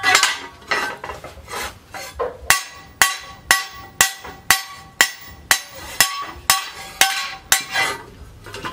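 Hand hammer blows on a large steel disc-plough blade resting on a post anvil, the blade ringing after each blow. A few uneven strikes come first, then about two evenly spaced strikes a second from about two and a half seconds in until near the end.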